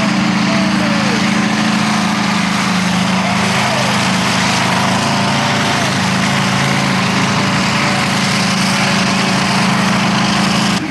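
Modified pulling tractor's engine running flat out at a steady pitch as it drags the sled down the track, a loud, constant exhaust drone.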